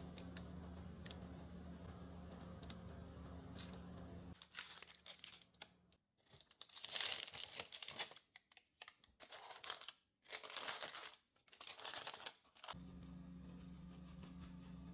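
Irregular bursts of crinkling, rustling noise for several seconds, starting a few seconds in after faint steady hum and a few light clicks.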